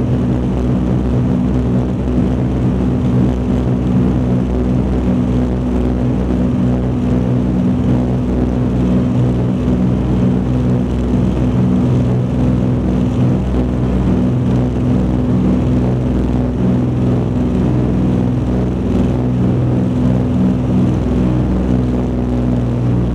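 Douglas DC-4's Pratt & Whitney R-2000 Twin Wasp radial piston engines running at climb power just after takeoff, heard from inside the cabin as a steady, deep drone.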